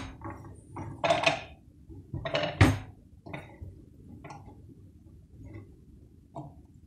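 Chopped horseradish root being scraped off a wooden cutting board and dropped into a blender beaker: a few knocks and clinks, the loudest about two and a half seconds in, then faint scattered taps.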